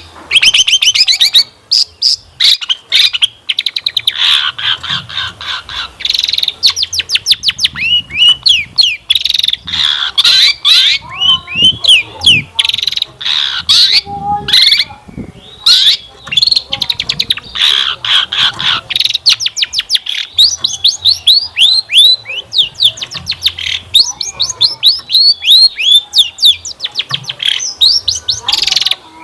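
Long-tailed shrike (cendet) singing a fast, varied song of chirps, trills and rapid strings of short sweeping notes, rich in mimicked phrases, with only brief pauses.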